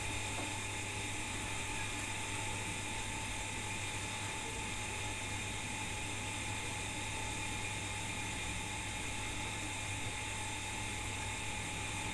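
Steady whirring hum with a hiss, unchanging throughout, from a running machine or appliance in the background.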